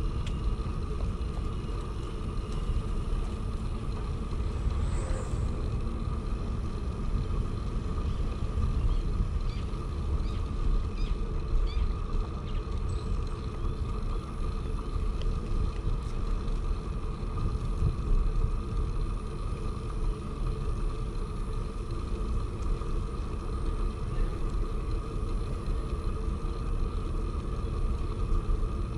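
Wind rumbling on the microphone of a camera riding along on a moving bicycle, over a steady hum, with a few faint short chirps about ten seconds in.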